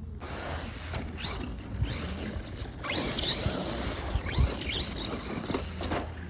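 Traxxas Rustler RC truck's electric motor whining in repeated throttle bursts, each whine falling quickly in pitch as it lets off, over the rush of the tyres.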